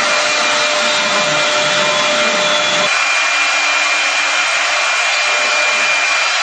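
CNC router spindle running at speed as it carves a wooden workpiece turning on a rotary axis: a steady high whine over the hiss of the cutter in wood. About three seconds in the deeper rumble drops away abruptly and the whine and hiss carry on.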